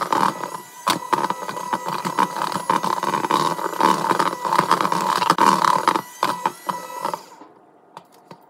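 Chefman electric hand mixer running with a steady whine, its beaters clattering against the sides of the bowl as they mix cookie dough. The motor stops about seven seconds in, followed by a few light clicks.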